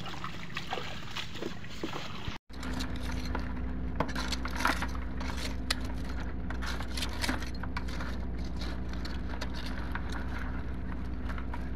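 Live crabs clicking and scraping against each other and against a plastic bucket as tongs work through them: many sharp, irregular clicks over a steady low hum. A brief dropout comes about two and a half seconds in.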